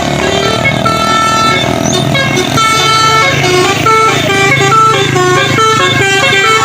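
Tour bus's telolet musical air horn (basuri type) playing a fast tune of short, stepped notes.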